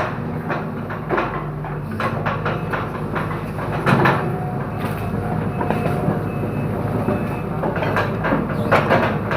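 Hydraulic excavator's diesel engine running steadily under load while bamboo stems crack and snap, with repeated sharp cracks and knocks, the loudest about four seconds in.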